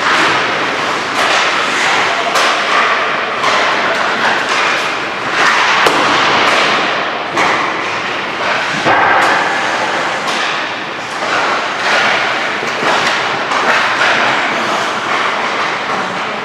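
Ice hockey skate on a rink: skates scraping and carving the ice, with frequent sharp knocks of pucks off sticks and boards.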